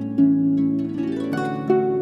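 Background music of plucked-string notes, a new note every half second or so over sustained tones.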